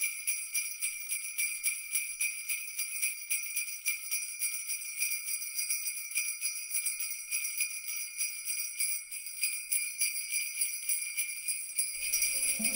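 Jingle bells shaken steadily and rapidly, a continuous bright jingling.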